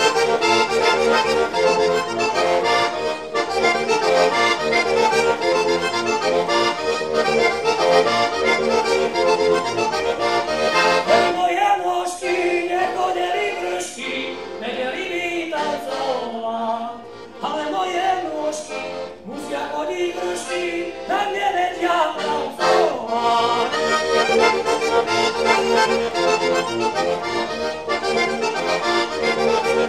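Heligónka, a Slovak diatonic button accordion, playing a lively folk tune with full chords. From about 12 s to about 23 s in, the playing thins to a sparser melodic passage before the full chords return.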